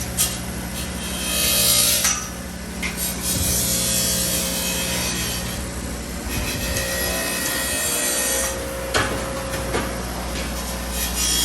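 Straps for a race car chassis being cut by hand: an uneven rasping, sawing scrape in stretches, over a steady low hum.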